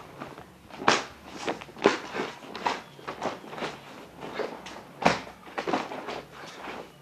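Quick swishes and sharp snaps of a cotton karate gi as strikes and blocks are thrown, mixed with footfalls. They come several times a second, and the loudest snaps fall about a second in, two seconds in and five seconds in.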